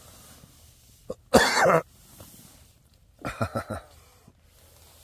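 A man coughing: one loud, hard cough about a second and a half in, then a quick run of smaller coughs about three seconds in.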